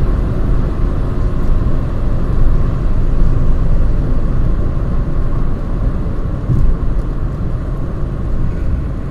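BMW 325tds's 2.5-litre turbodiesel straight-six with road and wind noise, heard inside the cabin at high speed as a steady low rumble. The car is slowing from about 190 to 145 km/h, its revs falling from about 4,000 to 3,000 rpm.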